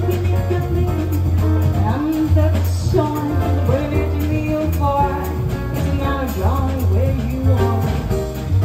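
A woman singing a ballad into a microphone, backed by a live jazz combo of grand piano, upright double bass and a Pearl drum kit with cymbals, the bass notes strong underneath.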